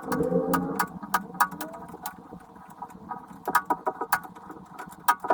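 A rapid run of sharp clicks, knocks and clinks, uneven in spacing, over a busy clattering rattle.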